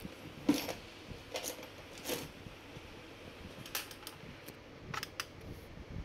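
A handful of light clicks and taps, spaced a second or so apart, from a laptop and a small screwdriver being handled on a hard work surface. Two quick taps come close together near the end, as the screwdriver tip meets a screw in the laptop's plastic base.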